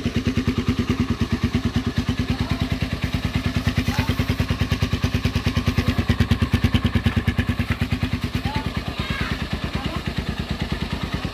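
Motorstar Xplorer Z200x motorcycle's 200 cc single-cylinder engine idling with a quick, even exhaust beat, swelling a little about halfway through and easing back.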